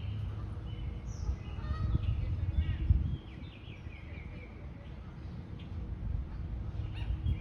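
Birds chirping and calling in short, scattered notes over a steady low rumble, which is louder for the first three seconds.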